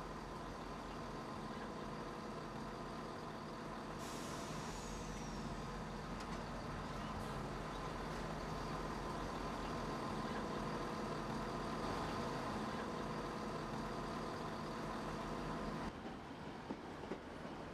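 Diesel multiple-unit train idling, a steady engine hum with a hissing that joins about four seconds in. Near the end the sound changes abruptly to a lighter, more uneven noise.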